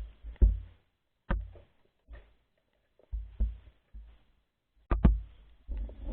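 Muffled, irregular knocks and thumps, each with a low rumble, spaced by short silences, typical of an action camera in its waterproof housing being jostled in water during a dive.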